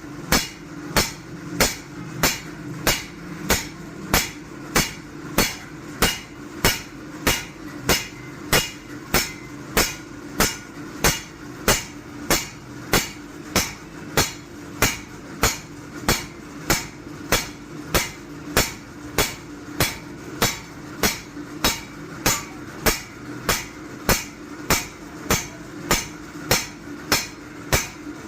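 Hand hammer striking a forage-machine blade on an anvil in a steady rhythm, about two blows a second, as the blade is forged. A steady low hum runs underneath.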